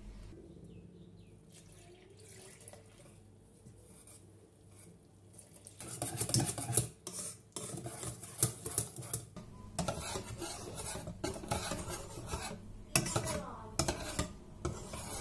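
Pancake batter being stirred briskly in a large bowl, the utensil scraping and clinking rapidly against the bowl's sides. It starts about six seconds in, after a quieter stretch.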